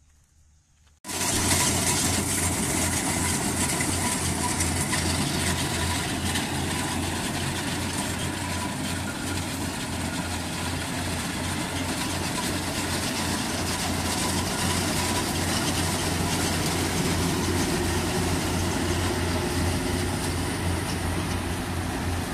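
Rice combine harvester running: a loud, steady engine-and-machinery drone with an even low throb, starting abruptly about a second in.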